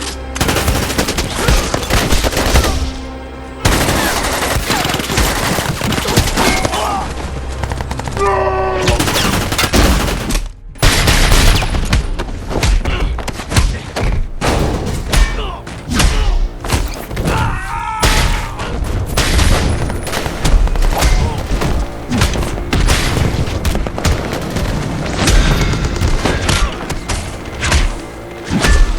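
Action-movie sound mix: rapid volleys of gunfire, heavy booms and hits layered over dramatic music, dense and unbroken except for a brief dip about ten seconds in.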